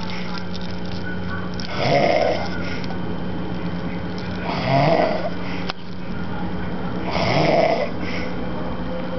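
A man snoring in his sleep: three snores about two and a half seconds apart.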